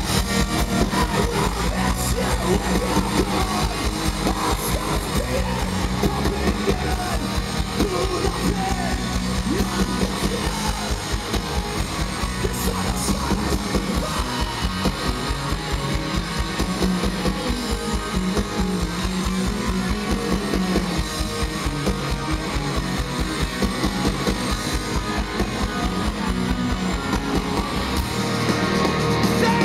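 Punk rock band playing live, with electric guitars, bass and drums driving a steady beat, heard from within the audience.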